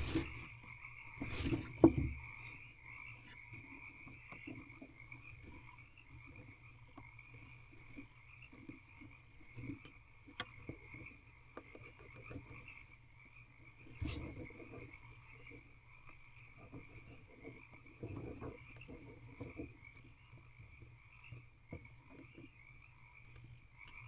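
Female barn owl shuffling on her eggs in a wooden nest box, scuffing and rustling the wood-chip bedding, with a loud scuffle and thump about two seconds in and softer rustles around the middle and later. A steady high-pitched chorus runs in the background.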